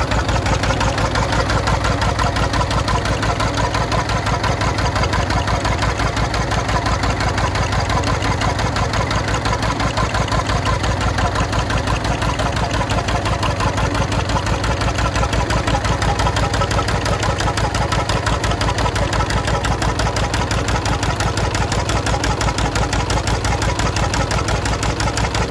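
Lister JP2 18 hp twin-cylinder stationary diesel engine running steadily, its firing strokes coming in an even, unbroken rhythm.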